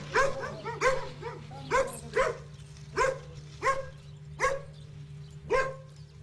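A dog barking repeatedly, about eight short sharp barks, spaced roughly half a second to a second apart.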